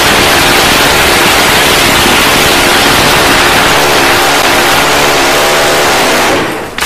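Loud, steady rushing roar of a jet aircraft in flight, with a faint hum of several tones beneath it. It fades out abruptly just before the end.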